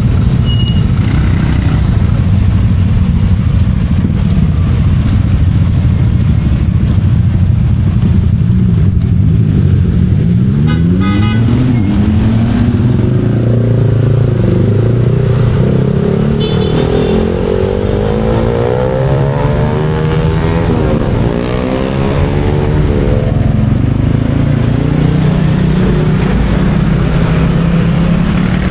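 Busy city-street traffic: car and motorcycle engines running steadily as they pass, with several engines rising in pitch as vehicles pull away and speed up through the middle. A short horn beep sounds about eleven seconds in.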